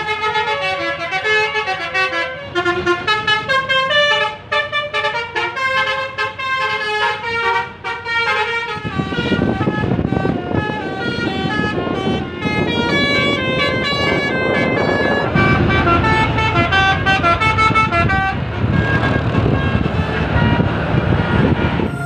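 Indonesian 'telolet' multi-tone bus horns playing quick stepping tune-like phrases on SJM Trans tour buses. From about nine seconds in, bus engine and road noise rises loud beneath the horns.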